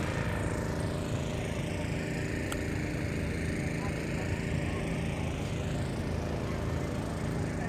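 Outdoor ambience dominated by a steady low rumble of wind on a phone microphone, with the faint voices of people around.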